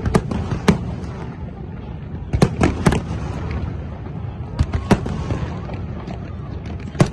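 Fireworks display: aerial shells bursting with sharp bangs at irregular intervals, in quick clusters about two and a half seconds in and again around five seconds, over a continuous low rumble.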